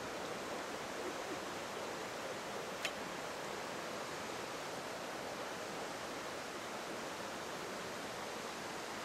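Steady, even rushing noise outdoors, with a single sharp click about three seconds in.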